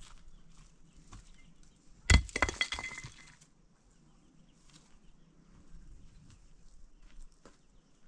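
Loose stones clattering against rock: a sharp knock about two seconds in, then a second or so of ringing clinks as the stones settle. Faint scattered ticks of small stones and footsteps on gravel run under it.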